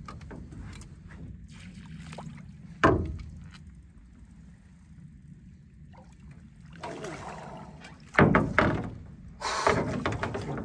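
A pike being netted beside a metal boat: one sharp knock against the hull, then loud water splashing and knocking as the fish thrashes in the landing net and is lifted aboard.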